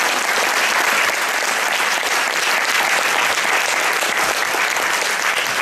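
A large audience clapping steadily.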